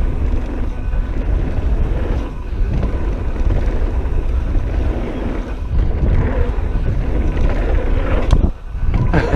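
Wind buffeting the camera's microphone over the running rumble and rattle of a Whyte G-160 mountain bike on a dirt trail, with two sharp knocks near the end.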